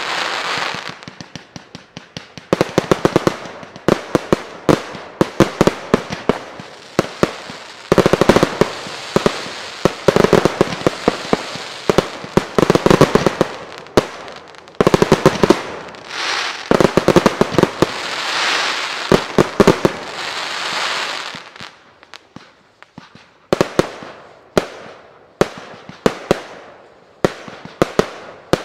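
Fireworks display fired from firework batteries: rapid volleys of sharp bangs mixed with dense crackling, in three heavy bursts, thinning near the end to single bangs a little more than one a second.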